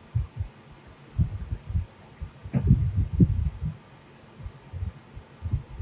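A man chewing a mouthful of fresh tomato: soft, irregular low thuds, in a short run about a second in and a longer run around the middle.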